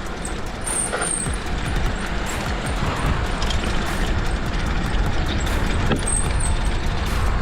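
Wind buffeting the microphone with a low, gusty rumble while a mountain bike rattles over a rough dirt trail, with a few sharp clicks and knocks.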